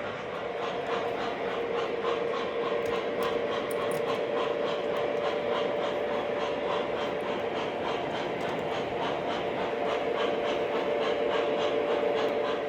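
O gauge model train running on the layout's track: an even, rhythmic clicking over a steady hum.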